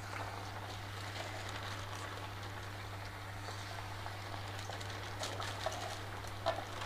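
Rice-flour and bottle gourd fritters sizzling in hot oil: a steady crackling fry, with a few sharper pops in the last couple of seconds.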